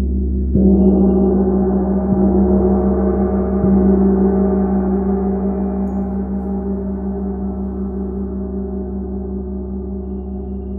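Large chau gong struck three times with a felt-headed mallet, about a second and a half apart, then left to ring on, its many overtones fading slowly.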